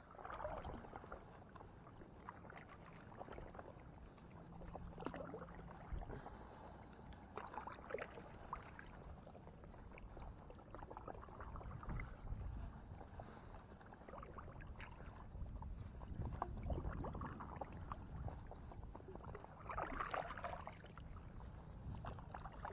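A paddle stroking through calm water from an inflatable paddleboard, an irregular swish of water every few seconds.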